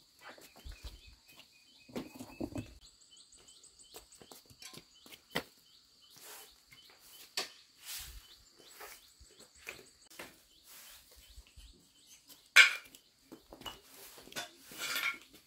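Small birds chirping over a steady high-pitched buzz, with scattered light knocks and bumps. A sharp knock comes about twelve seconds in, and a short burst of straw broom sweeping on a dirt floor near the end.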